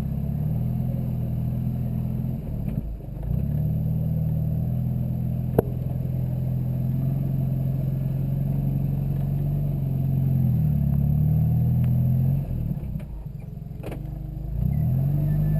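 Jeep Wrangler YJ's 2.5-litre four-cylinder engine running on the trail, its note rising and falling with the throttle and easing off briefly about three seconds in and again for a couple of seconds near the end. One sharp knock is heard about five and a half seconds in.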